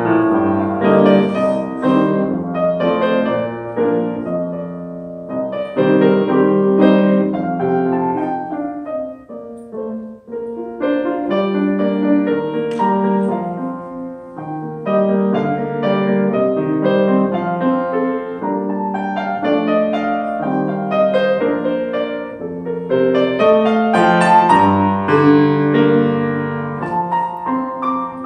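Yamaha grand piano played solo: a flowing passage of chords and melody that thins out briefly about ten seconds in, then builds to a fuller, louder stretch near the end.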